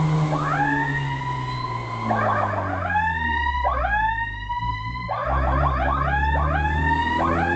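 Electronic emergency siren on a fire-response vehicle, sounding a string of quick upward sweeps that each rise and then level off, broken by runs of faster, shorter sweeps about two and five seconds in. The vehicle's engine runs as a low rumble underneath.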